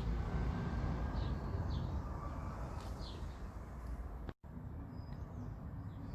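Outdoor ambience: a steady low rumble with a few short bird chirps, broken by a brief dropout a little past four seconds.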